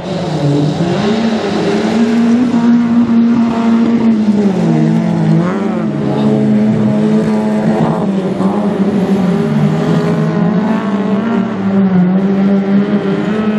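Autocross race car engines running hard on a dirt track, the revs dropping and climbing again several times.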